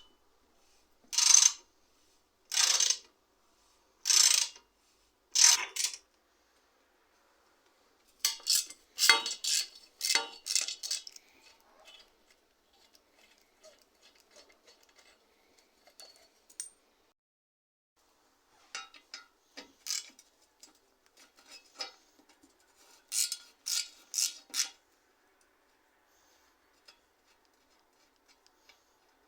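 Bicycle repair work: five short, evenly spaced hissing strokes, then two bursts of rapid mechanical clicking, like a ratchet or parts being handled.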